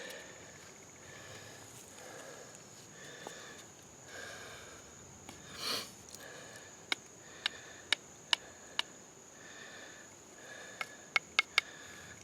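A man breathing hard in soft, even breaths, winded from spinning a hand drill, over a steady high insect drone. There is a stronger puff of breath about six seconds in, and a run of sharp clicks in the second half.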